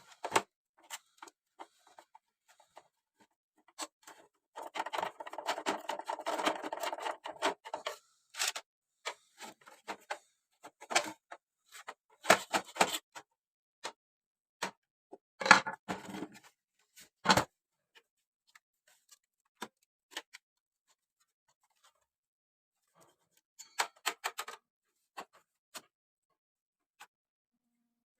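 Irregular clicks, taps and knocks of small hard plastic and metal parts and tools being handled while working on a vintage radio cassette player, with a longer rasping scrape from about five to eight seconds in.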